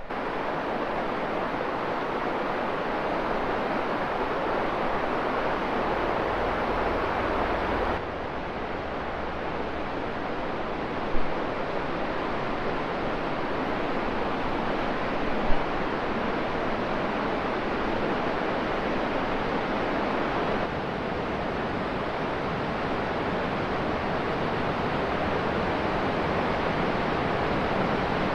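River waterfall rushing steadily, with two brief knocks about 11 and 15 seconds in and abrupt shifts in the sound about 8 and 21 seconds in.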